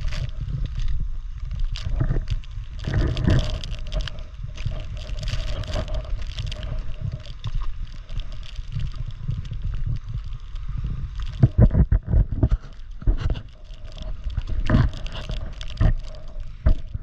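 Wind buffeting the microphone: a continuous low rumble that swells and drops with the gusts. In the second half it is joined by a string of sharp knocks and crunches from the moving camera rig over the rocks.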